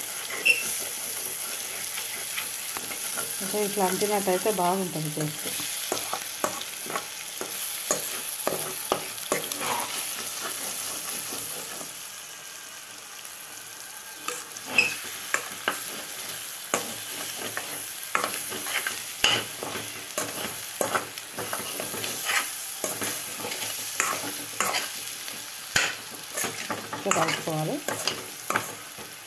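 Egg and onion fry sizzling in a stainless steel pan while a metal spoon stirs and scrapes through it, with frequent sharp clicks of spoon against pan over a steady hiss.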